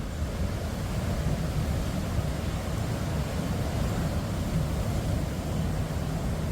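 Steady low rumble of wind buffeting the microphone, with surf washing onto the beach.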